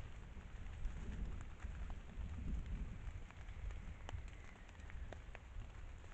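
Scattered light ticks and patters of drops on leaves over a steady low rumble.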